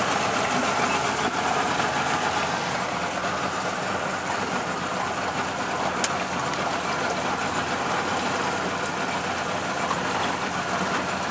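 A small boat's motor running steadily under way, mixed with a constant rush of wind and water; a single sharp click about six seconds in.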